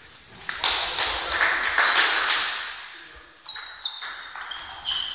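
Table tennis rally: the ball clicking back and forth off the rackets and table in quick irregular strikes, with a few short high squeaks in the second half.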